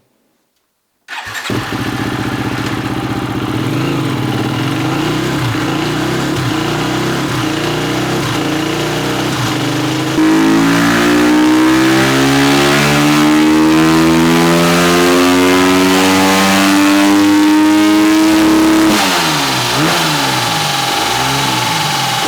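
2018 KTM EXC-F 250's single-cylinder four-stroke engine running under load on a rear-wheel dynamometer. It comes in about a second in at steady revs. About ten seconds in it gets louder and its pitch climbs steadily through a throttle pull until near the end, when the revs fall away and waver.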